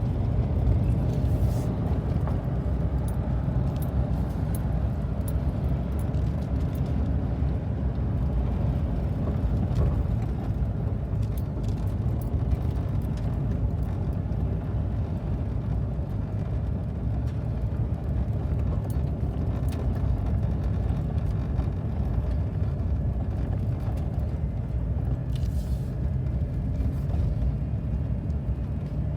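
A car driving along a road: steady low engine and tyre rumble with no change in pace.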